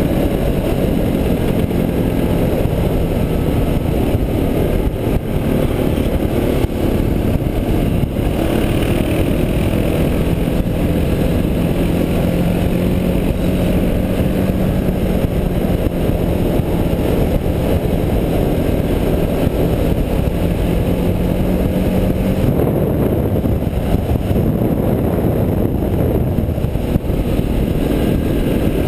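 Suzuki DR650's single-cylinder four-stroke engine running at a steady cruising speed, heard from on board under heavy wind rush on the microphone. The engine note holds steady for long stretches and drops back about 22 seconds in.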